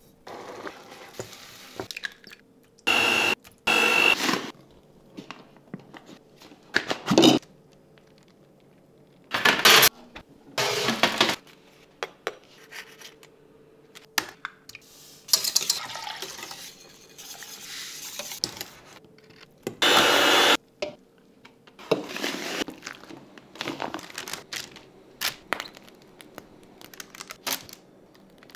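A run of kitchen preparation sounds in short cuts: a steel pot on the hob, an egg handled at the countertop, and several loud noisy bursts of about a second each, with small clinks and taps in between.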